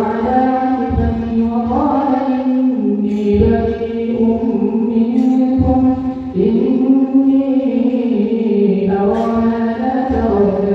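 A man's voice reciting the Quran aloud in a melodic chant while leading tarawih prayer, holding long notes that rise and fall in pitch, phrase after phrase.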